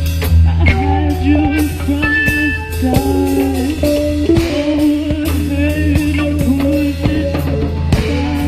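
Music with drum kit and guitar, a steady beat under a held, bending melodic line.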